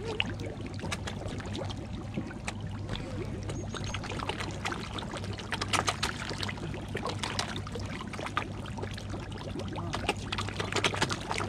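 Pond fish splashing and thrashing at the water's surface as they crowd and jostle to suck from a feeding bottle: irregular splashes and slaps of water, with a steady low hum underneath.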